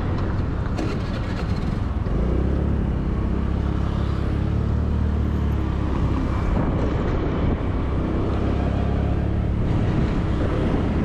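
Motorbike engine running at a steady pace while riding, with wind and road noise. The engine note settles into a steady hum about two seconds in.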